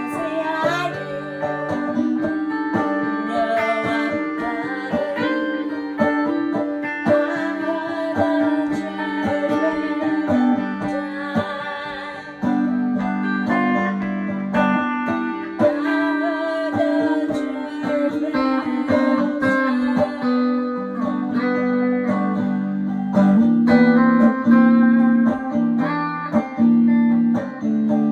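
Electrified banjo and electric guitar playing an instrumental duet: a steady stream of picked notes over held lower notes.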